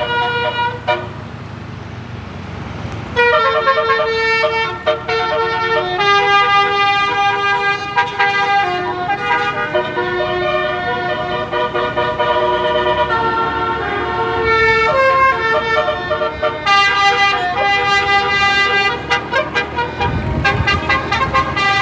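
18-note telolet 'basuri' musical air horn playing a melody of held notes, often several sounding together as chords. It falls quiet about a second in, starts again about three seconds in and plays on; a low engine rumble comes in near the end.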